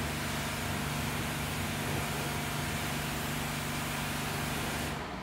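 High-pressure washer running: its pump motor hums steadily under the hiss of the water jet spraying a car. Pump and spray cut off together near the end.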